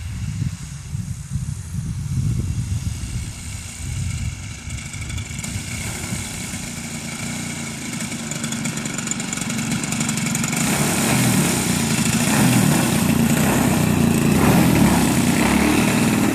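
Piped ZDZ 90 two-stroke gas engine of a large RC Extra 330 idling as the plane taxis in after landing, growing steadily louder as it comes closer.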